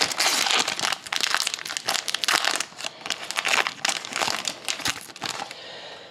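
Foil wrapper of a 2012-13 Fleer Retro hockey card pack crinkling as it is torn open by hand, in a dense run of irregular crackles that dies down after about five seconds as the cards come out.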